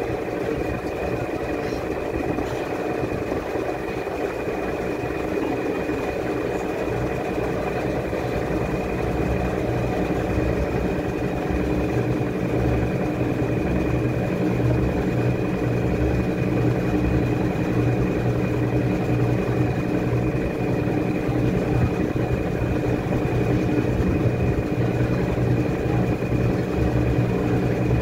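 Washing machine running with its drum turning the laundry: a steady motor hum with a thin high whine, the low rumble and loudness building gradually from about halfway through as the drum works harder.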